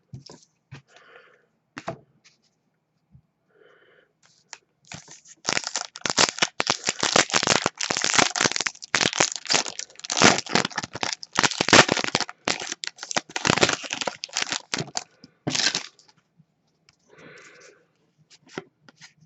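Trading-card pack wrapper being torn open and crinkled in the hands: a dense run of crackling that starts about five seconds in and lasts about ten seconds.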